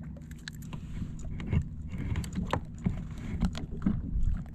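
Handling noise while a caught fish is put away: irregular sharp clicks and light knocks, over a steady low rumble.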